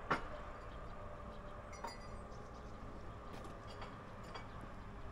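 Low background ambience with a few faint, scattered clicks.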